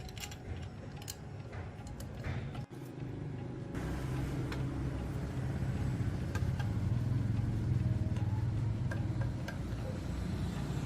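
Scattered clicks and knocks over a low rumble, then, after a sudden change about a third of the way in, a machine running with a steady low hum.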